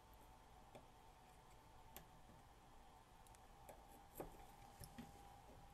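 Near silence with a handful of faint, short clicks, the loudest about four seconds in: needle-nose pliers working at a component on a circuit board. A faint steady hum lies under it.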